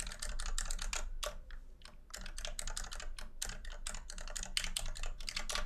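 Computer keyboard typing: a quick, irregular run of keystrokes with a short pause about two seconds in, as a username and then a password are typed at a login prompt.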